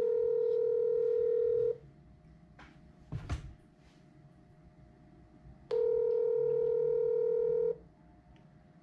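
Telephone ringback tone: two steady two-second rings about four seconds apart, meaning the call is ringing through on the other end. A brief knock sounds between the two rings.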